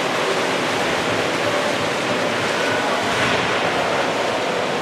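Steady wash of water splashing and churning in an indoor swimming pool as water polo players swim and fight for the ball, blended with the echoing hubbub of the pool hall.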